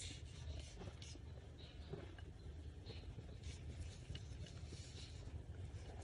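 Faint, irregular rustling and scratching of yarn being drawn over the fingers and worked with a metal crochet hook, over a low steady hum.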